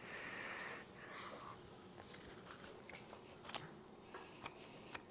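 A child quietly chewing a bite of steak, with a few faint mouth clicks and smacks.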